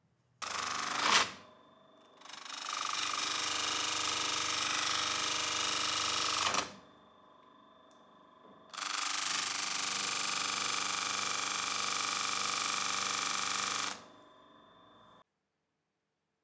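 Bench grinder running with a steady whine, a small metal part pressed against its spinning wheel in a short touch about a second in and then two long passes of loud, even grinding noise. The motor keeps running quietly between passes and cuts off abruptly near the end.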